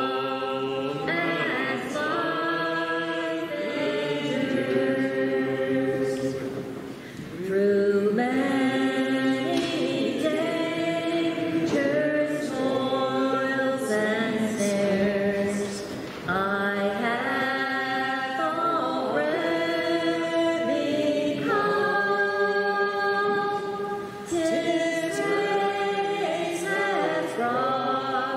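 A choir singing a hymn in held, sustained notes, with short breaks between phrases.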